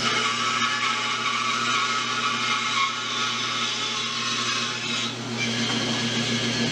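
Band saw running and cutting into the end of a wooden canoe seat frame, trimming it to an angle. The motor hum is steady, with the cutting noise over it and a brief lull about five seconds in.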